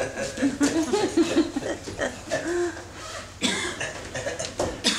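Actors' wordless vocal sounds: pitched, sliding exclamations in the first half, then two sharp breathy bursts, one about three and a half seconds in and one near the end.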